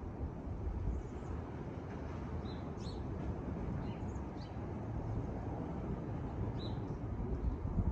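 Steady low wind rumble on the microphone outdoors, with a few short, high bird chirps scattered through it.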